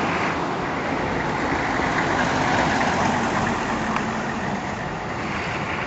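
Steady street noise with a motor vehicle engine running nearby, a low hum under a constant hiss.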